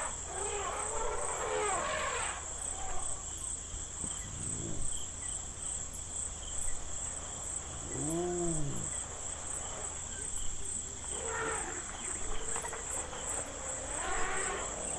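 Night insect chorus: crickets chirping in a steady, high-pitched, evenly pulsing drone. Several short rising-and-falling calls come through it, the clearest about eight seconds in.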